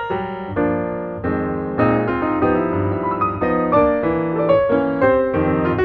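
Background piano music, a slow run of notes and chords.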